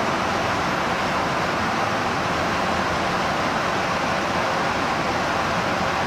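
Steady rushing roar of a tanker aircraft in flight, airflow and engine noise heard from inside the plane, even in level throughout.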